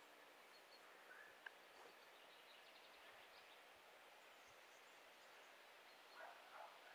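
Faint, distant beagles baying in short calls, starting near the end, over a quiet field with a few faint bird chirps earlier on.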